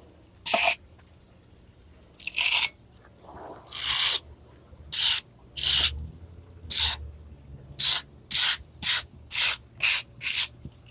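Wire brush scrubbing over the burnt, coloured surface of a carved pine bear in short scratchy strokes that come faster near the end. The brushing lightens the finish and clears the chalky burnt residue.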